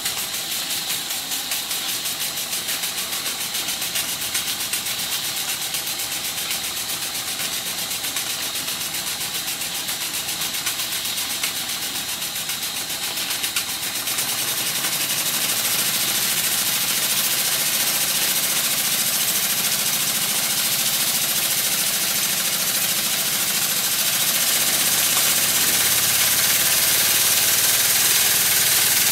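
Circa-1896 model single-cylinder steam engine running on live steam: a fast, even exhaust beat with steam hissing from its leaking dummy piston rod gland. About halfway through the sound grows louder and hissier.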